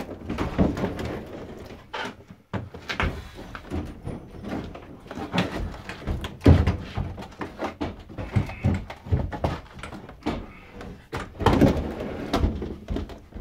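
A heavy wooden door being wrestled down a narrow stairway: irregular knocks, bumps and scrapes of the wood against the steps and walls, with the heaviest thump about six and a half seconds in.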